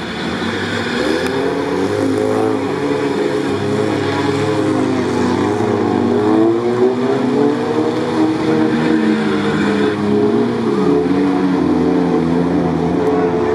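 Off-road vehicle engine revving hard and unevenly, its pitch swinging up and down every few seconds as it labours to push through deep swamp mud.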